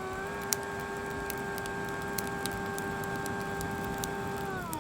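DeWALT cordless leaf blower running with a steady whine, blowing air onto a fire; the whine falls in pitch near the end as the fan winds down. Sharp crackling pops from the fire come through the rush of air.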